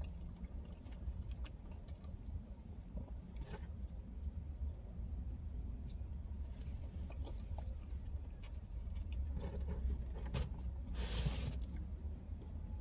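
Close-up chewing of pizza, with scattered small mouth clicks and smacks over a low steady rumble, and a brief hiss about eleven seconds in.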